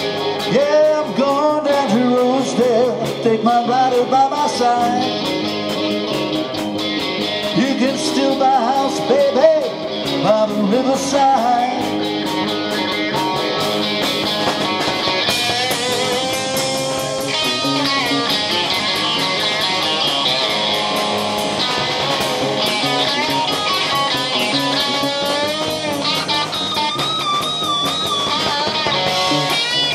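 Live band playing blues-rock: electric guitar leads with bent, sliding notes over drums, bass and keyboards.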